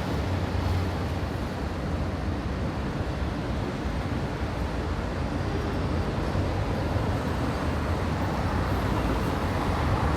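Busy city street traffic: a steady rumble of cars, buses and scooters passing.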